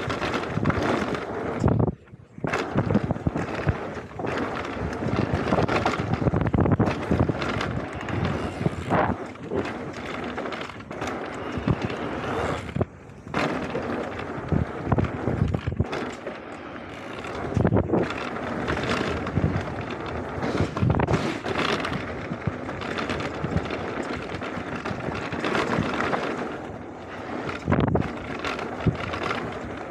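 Electric mountain bike riding fast down a rocky gravel trail: tyres crunching over stones and the bike rattling and knocking over bumps, with wind buffeting the camera microphone. The noise drops briefly twice, about two and thirteen seconds in.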